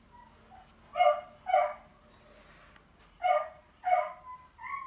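A dog barking in pairs: two barks about a second in, two more about three seconds in, and a shorter one near the end.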